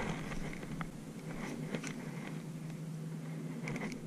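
Faint clicks and handling from a spinning reel being cranked, over a low steady hum.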